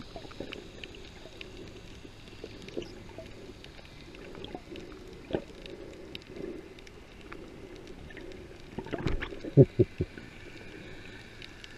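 Muffled underwater noise picked up by a camera held below the surface: a steady low wash with scattered faint clicks, and a quick run of loud knocks a little after nine seconds.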